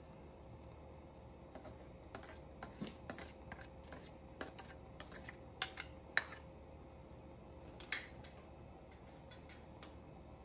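White plastic rice spoon tapping and scraping against a nonstick pan while spreading boiled rice: a run of light, irregular clicks that thins out near the end, over a faint steady hum.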